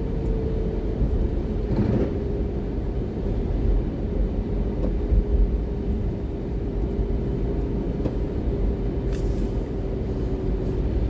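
Car driving on a snowy road, heard from inside the cabin: a steady low rumble of engine and tyres with a faint steady hum, and two brief swishes, about two seconds in and near the end.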